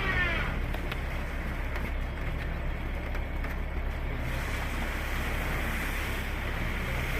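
Car engine held at steady revs with a continuous rushing noise, as the car tries to pull itself out of snow.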